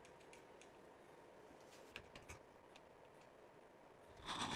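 Mostly near silence with a few faint metallic clicks and taps as parts of a 1930s Ixion hand-cranked two-speed drill are handled. Near the end a louder rubbing whirr starts as the crank handle begins turning the drill's gears.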